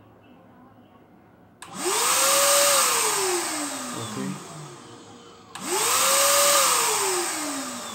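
INGCO cordless paint spray gun's blower motor, running on a Total 20V battery, triggered twice: each time it starts suddenly with a rush of air and a whine that rises quickly, then falls slowly as the motor coasts down after the trigger is let go.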